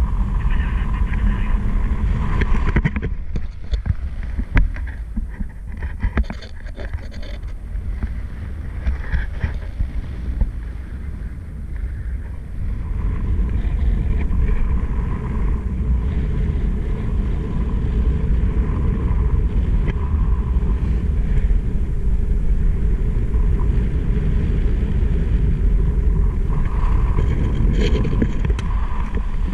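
Wind buffeting the microphone of a paraglider pilot's action camera in flight: a loud, gusty low rumble. It is weaker and more broken for about ten seconds after the start, then steadier and stronger.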